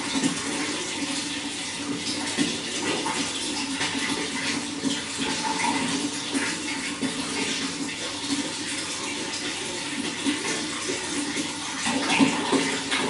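Running water: a steady rushing flow with frequent small splashes, a little louder near the end.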